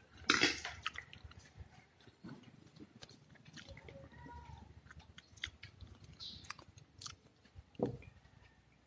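Someone chewing soft durian flesh close to the microphone, with wet mouth sounds and scattered small clicks and knocks, the loudest just after the start.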